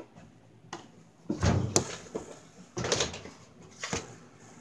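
Handling noise: a few knocks and rustles as objects are picked up and moved about close to a phone's microphone, the loudest about a second and a half in and near three seconds.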